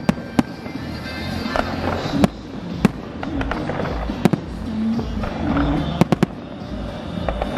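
New Year's fireworks display: aerial shells bursting in sharp bangs at irregular intervals, with three in quick succession about six seconds in, over a continuous background of crackle and music.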